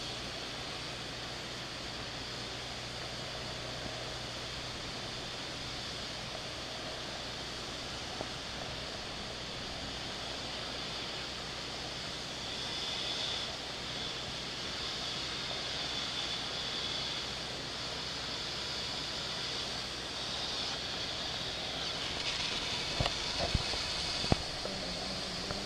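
Compressed air blowing drill cuttings and rock dust out of a freshly drilled borehole: a steady rushing hiss. A few sharp knocks come near the end.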